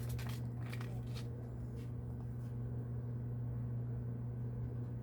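A steady low hum of background noise, with a few light, sharp clicks in the first second and a half and a couple more sparsely after.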